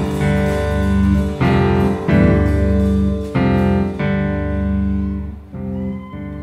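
Rock band playing live without vocals: electric guitar, bass, keyboard and drums in an instrumental passage of loud held chords struck about once a second. The cymbals fade about four seconds in and the band plays quieter near the end.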